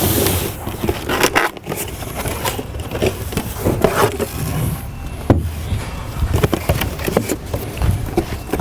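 Irregular knocks, scrapes and crackles of A/C repair parts being handled and set down.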